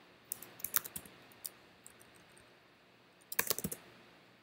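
Computer keyboard typing: a few scattered keystrokes in the first second and a half, then a quick flurry of keys about three and a half seconds in.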